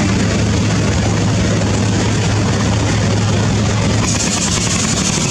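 Boat engine of a wooden river trawler running with a steady low drone, under the rush and splash of rough river water against the hulls. About four seconds in, the hiss of water grows brighter as a second trawler comes close alongside.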